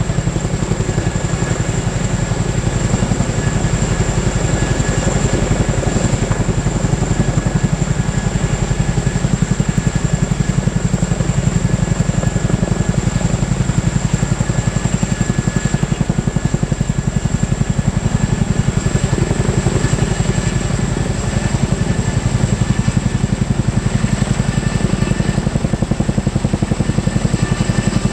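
Turbine helicopter running close by, with a fast, even rotor beat and a steady high-pitched turbine whine.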